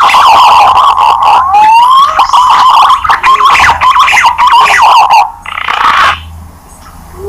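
A chorus of green pigeons (punai) calling: loud, overlapping whistled notes that glide and waver, as played for luring the birds. The calls stop about five seconds in after a brief burst of hiss, leaving faint, low cooing notes.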